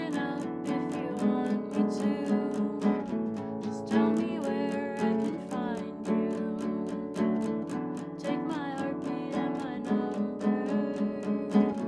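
A woman singing to a nylon-string classical guitar, strummed in a steady, even rhythm, her voice coming in phrases over the strumming.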